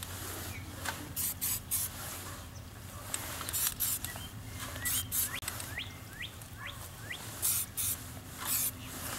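Aerosol spray-paint can fired in short hissing bursts, several of them a second or more apart. A small bird chirps a few times in the middle.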